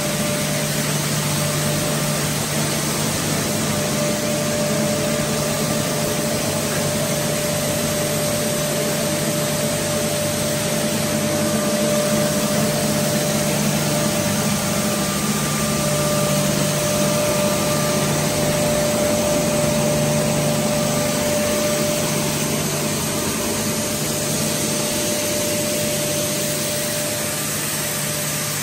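Plastic strand pelletizing line running steadily: a continuous machine hiss with a constant low hum and a steady mid-pitched whine from the pellet cutter, vibrating pellet screen and cyclone blower.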